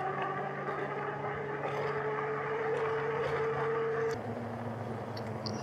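Electric bike hub motor whining steadily under way over tyre and wind noise, its pitch creeping slightly upward. About four seconds in there is a click, and the whine drops to a lower steady tone.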